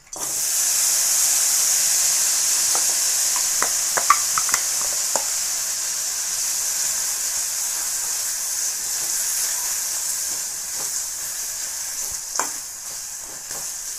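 Chopped jaggery tipped into a hot kadhai sets off a sudden, steady sizzle that slowly eases as it starts to melt into syrup. A steel spatula stirring it clicks and scrapes against the pan, a few times about four seconds in and once near the end.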